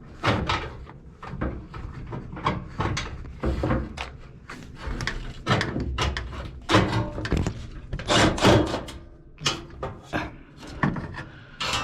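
Sheet-metal housing of a fan coil unit knocking, rattling and scraping as its last screw comes out and it is worked loose, with a short metallic ring right at the end.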